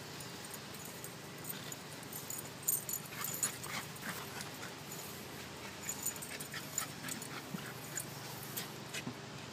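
A beagle whimpering, with a scatter of short sharp sounds through the middle.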